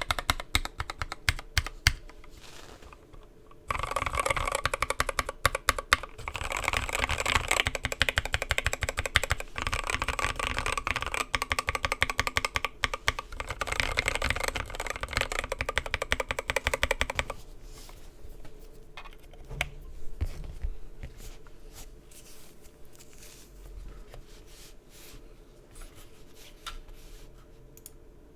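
Typing on a Mark 65 mechanical keyboard with an aluminium plate and lubed, filmed Gateron Milky Yellow linear switches: a fast, dense run of keystrokes, with a brief pause about three seconds in. About two-thirds of the way through, the keystrokes become sparser and quieter.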